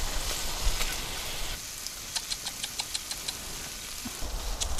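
Pork intestines (makchang) sizzling in a frying pan. About two seconds in comes a quick run of lip-smacking kissing clicks, about eight a second, the 'jjujjujju' sound made to call a cat.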